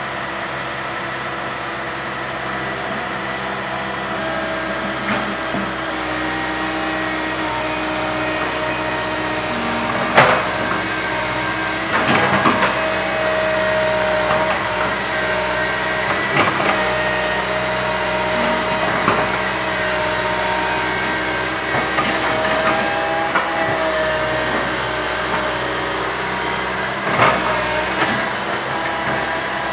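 Komatsu PC160 hydraulic excavator's diesel engine running steadily under working load, with a hydraulic whine that rises and falls in pitch as the machine works. Several sharp metal clanks stand out, the loudest about ten seconds in and another near the end.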